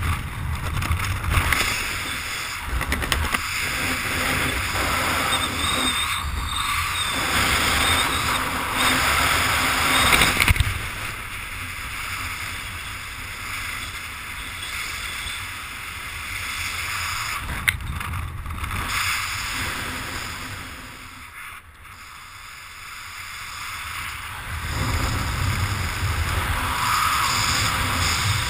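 Wind rushing and buffeting over a helmet camera's microphone as a skydiver descends under an open parachute canopy, gusting and easing, with a quieter lull about three-quarters of the way through.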